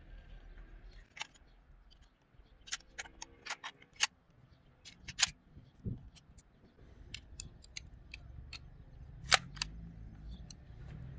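Metal parts of a Beretta 301 semi-automatic shotgun clicking and clacking as it is taken apart by hand: irregular sharp clicks, the loudest about 4, 5 and 9 seconds in.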